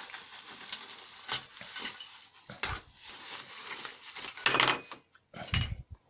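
Bubble wrap rustling and crinkling as hands unwrap a heat gun's metal nozzles, then a few sharp metallic clinks and knocks as the nozzles are set down, the loudest about four and a half seconds in.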